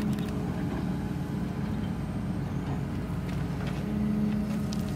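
Heavy diesel engine of a truck or work vehicle running steadily at low revs, with a constant low hum.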